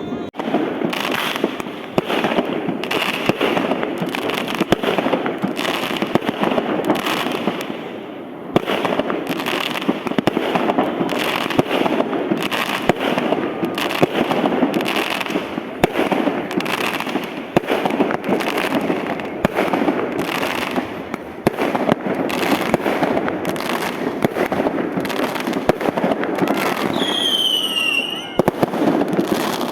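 Fireworks display of 4–5 inch aerial shells: a dense, nearly continuous barrage of bangs with crackling between them, and a whistle near the end.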